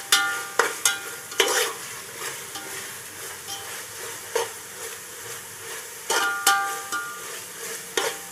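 Onions, green chillies and ginger-garlic paste sizzling in oil in a steel pot while being stirred, at the stage of frying off the paste's rawness. A steady sizzle runs under scraping stirs, and the spoon knocks against the pot, which rings briefly, in clusters in the first second and a half and again about six seconds in.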